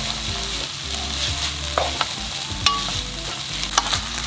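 Ketchup-coated spaghetti, sausage and vegetables sizzling in a non-stick frying pan while being tossed with chopsticks, with a few sharp clicks of the chopsticks against the pan.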